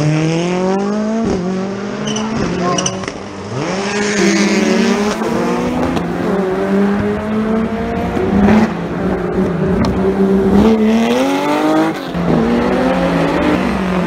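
Rally cars accelerating hard on a tarmac stage, their engines revving up and dropping back at each gear change, over and over as successive cars pass.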